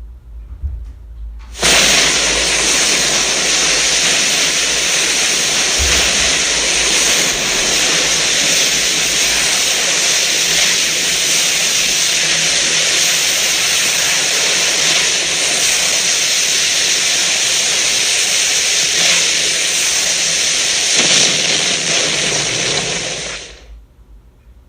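A loud, steady rushing hiss, like a jet of steam or blasting air, starts sharply about two seconds in, holds for about twenty seconds, and then cuts off.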